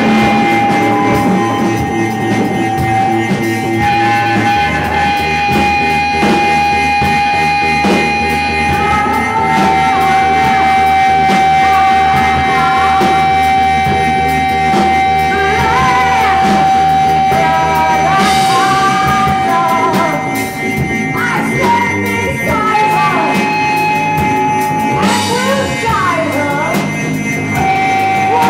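Live noise-rock band playing loud: electric bass and drums under a steady high tone held most of the time, with yelled vocals coming in about a third of the way through.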